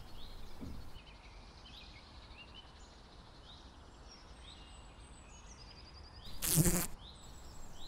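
A brief, loud buzz of a yellow dung fly's wings about six and a half seconds in. Before it there is a quiet background with faint, short, high chirps.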